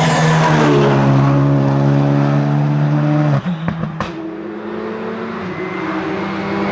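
Škoda Fabia RS Rally2 rally car's turbocharged 1.6-litre four-cylinder engine running hard at high revs as the car drives close by; the loud engine note ends suddenly a little over three seconds in. After a sharp click, the engine is heard more faintly from a distance, growing louder toward the end as the car approaches.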